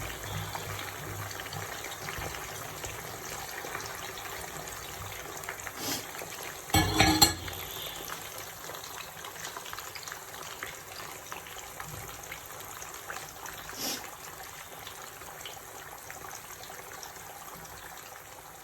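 Cassava pieces deep-frying in hot oil, a steady sizzle. There is a brief louder noise about seven seconds in, and a couple of light knocks.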